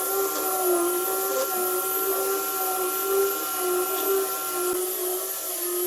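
An electric power tool's motor running steadily, its pitch wavering slightly as if under changing load.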